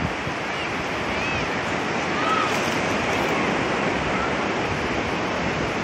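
Ocean surf washing up the beach, a steady rushing noise, with a few faint short high cries over it.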